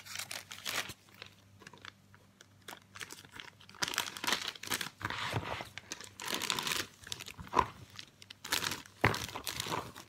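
Clear plastic zip-top bags crinkling and rustling in irregular bursts as cut okra is scooped by hand from a plastic colander into a bag.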